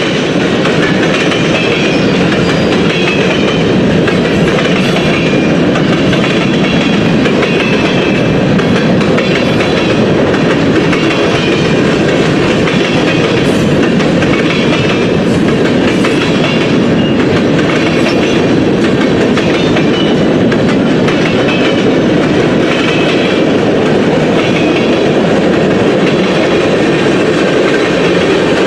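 Freight train rolling past, its cars' wheels running steadily over the rails in a continuous loud rumble.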